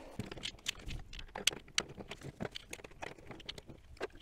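Irregular light clicks, clinks and knocks of the EcoFlow solar tracker's metal frame parts and bolts being handled and fitted together during assembly.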